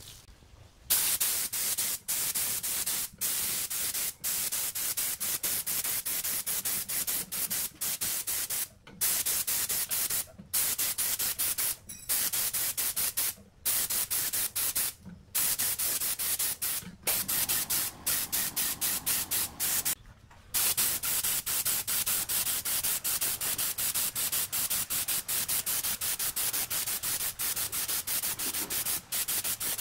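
Air spray gun hissing as it sprays black paint onto a subwoofer's speaker basket. The hiss starts about a second in and comes in long stretches, broken by short pauses several times.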